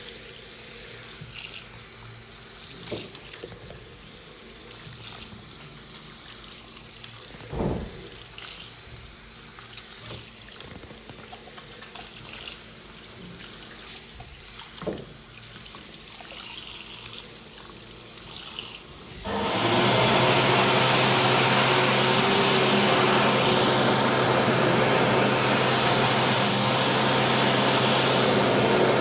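Public restroom with a few scattered knocks and thuds. About two-thirds of the way through, a loud, steady rushing of air with a motor hum starts suddenly: an electric hand dryer running.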